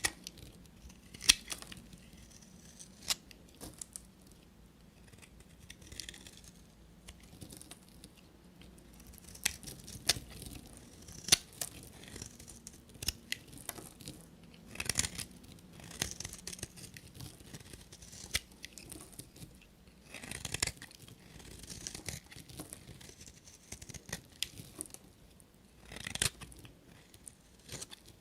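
Knife cutting through bars of soap: a series of short, crisp crunches and clicks at irregular intervals.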